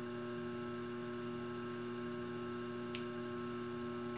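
Potter's wheel motor humming steadily as the wheel spins. A faint click comes about three seconds in.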